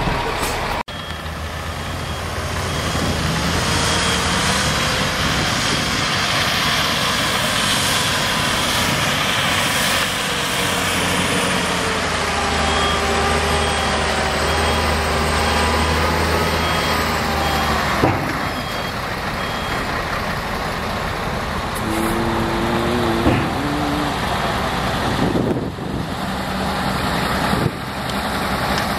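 Heavy tipper dump truck's diesel engine running steadily while it manoeuvres, with a high reversing alarm beeping in a steady on-off rhythm for a few seconds near the start and again for several seconds in the middle.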